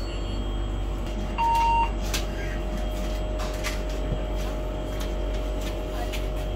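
Inside a city bus: the bus's steady low hum, with a single beep about one and a half seconds in from the driver's ticket and card reader as a passenger pays, and a few light clicks after it.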